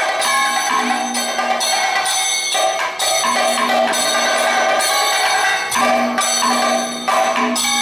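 Kathakali accompaniment music: chenda and maddalam drums beating a steady rhythm, with ringing metal strokes from a gong and cymbals and held sung notes that break off and resume.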